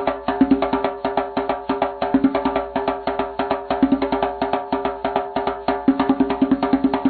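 Background music: a fast, even clicking beat like a wood block, over steady held tones.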